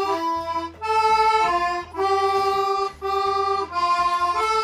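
Small hand-held accordion played in a run of held reedy chords, each lasting about a second, with short breaks between them as the chord changes.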